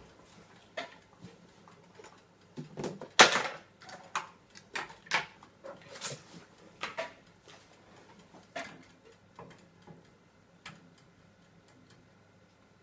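Scattered knocks and clicks of kitchen things being handled on a worktop, about a dozen with short quiet gaps between, the loudest a little over three seconds in.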